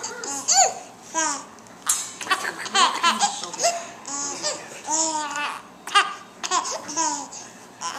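Young baby laughing over and over in short, high-pitched bursts while his feet are moved about.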